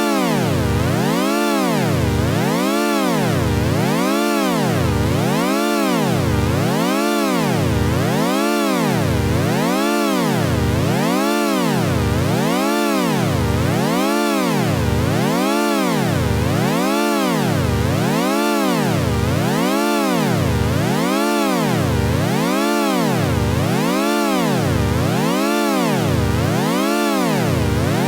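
Electronic synthesizer sound effect: a buzzy tone rich in overtones whose pitch swoops up and down in an even, repeating wobble a little under once a second, unbroken and at a steady level.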